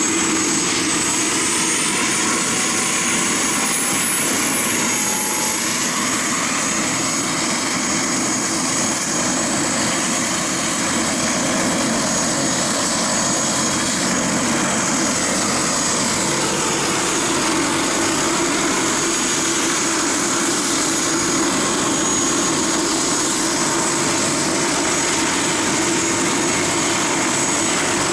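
Aircraft turbine engine running steadily, with a high whine that climbs in pitch over the first ten seconds or so and then holds.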